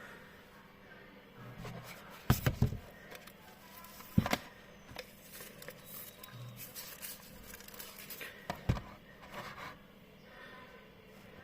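Unboxing handling of sunglasses packaging: a few sharp clicks and knocks, the loudest about two seconds in, again near four seconds and near nine seconds, with light scraping and rustling between them.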